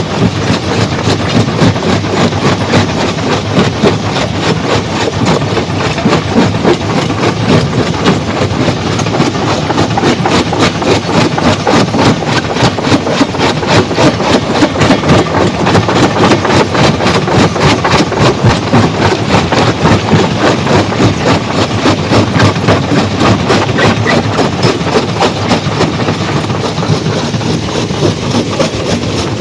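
Stone crusher running under load: a loud, continuous mechanical clatter with a fast, even pulse.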